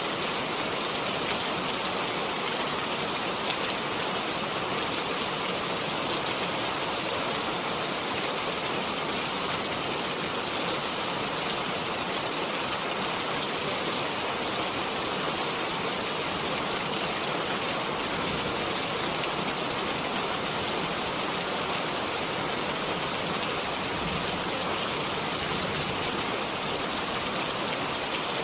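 Steady rain falling, a continuous even hiss of many drops pattering on a surface.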